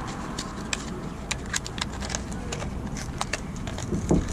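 Plastic packaging of a 3157 bulb being handled and opened by hand: a scattered run of small sharp clicks and crackles, over a steady low rumble.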